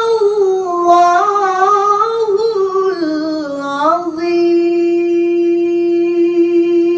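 A woman's voice reciting the Quran in a melodic tajweed style, winding through ornamented pitch turns, then holding one long steady note from about four seconds in.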